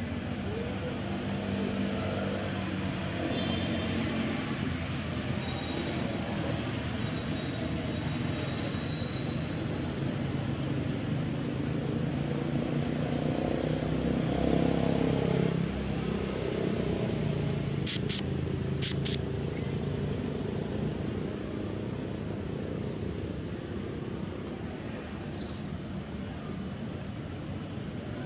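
A bird's short, high chirp repeated about once every second or so over a low background rumble. Two or three sharp clicks stand out about two-thirds of the way in.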